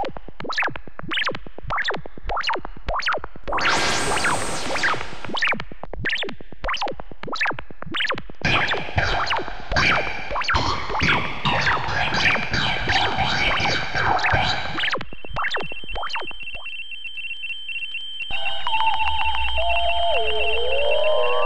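A string of synthesized retro sci-fi sound effects: quick electronic blips, about two or three a second, and a short noisy burst about four seconds in. Then comes a stretch of busy, computer-like bleeping, a steady electronic tone, and finally a hum with rising, wavering pitch glides near the end.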